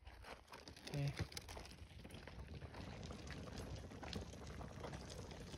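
Steady crunching of gravel under footsteps, with a loaded cooler being pulled along a gravel road.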